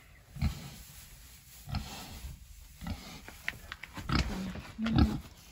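A pig grunting in short bursts while rooting through fresh straw bedding to make her bed, with straw rustling between the grunts; the loudest grunt comes near the end.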